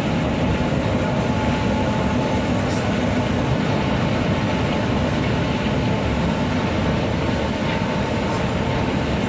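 Steady drone inside a heavy vehicle's cab at highway speed: engine rumble with tyre noise from a wet road surface.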